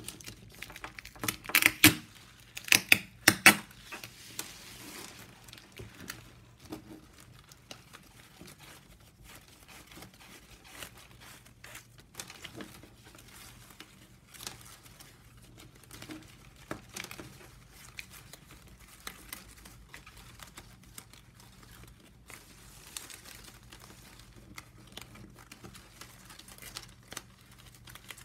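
Plastic strapping band strips crinkling and rustling as they are bent, slid and woven by hand. A cluster of sharp, louder snaps and clicks comes in the first few seconds, then softer scattered crackles.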